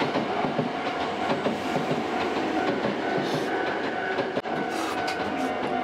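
Train running past, wheels clattering on the rails, with a steady ringing tone over it.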